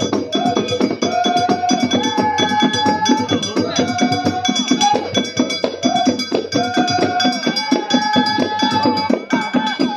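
Hmadcha Sufi ritual music: a melody of long held notes that step up and down, over fast, dense percussion.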